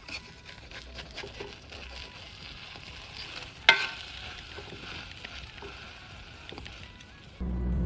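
Food sizzling and crackling as it fries in a pan, with scattered small pops and one sharp click about three and a half seconds in.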